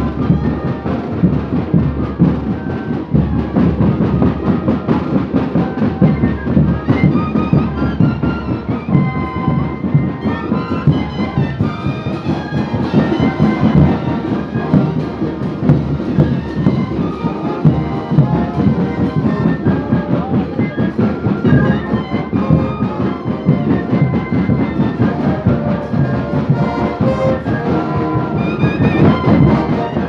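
Live brass band with bass drums and cymbals playing a lively carnival dance tune, the trumpets and trombones carrying the melody over a steady drum beat.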